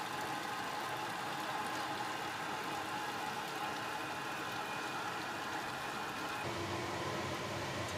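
A stream of water pouring into a steaming stainless-steel stock pot of bone broth, a steady splashing hiss over the even hum of kitchen machinery. The hum's tone changes about six and a half seconds in.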